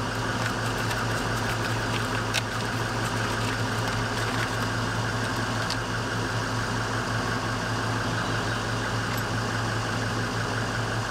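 Engine idling with a steady hum and a few faint clicks over it.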